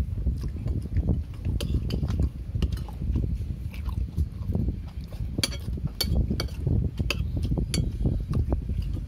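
Metal spoons clinking and scraping on china plates while rice is eaten, with a run of sharp clinks a little past the middle. A steady low rumble runs underneath.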